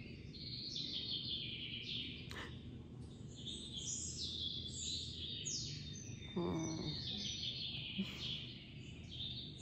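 Small birds chirping and twittering continuously in quick, falling notes, with a low steady rumble beneath that fits a cat purring.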